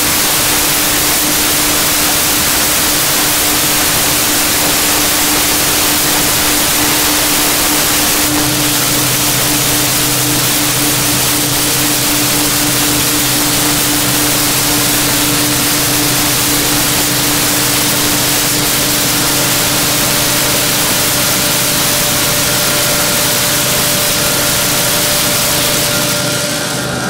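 Steady loud hiss of a mechanized pipeline welding arc from a LoneStar bug-and-band orbital welder laying a weld around a large steel gas pipe joint. A steady hum runs underneath, and a second, lower hum joins about eight seconds in.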